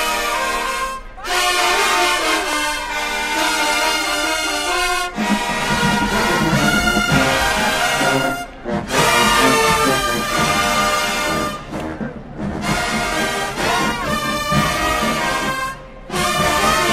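Marching band playing brass-heavy music, with horns carrying the melody. A deeper low end joins about five seconds in, and the music breaks off briefly a few times between phrases.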